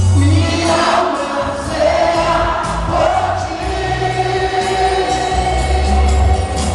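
Congregation singing a gospel worship song together, with instruments playing along underneath.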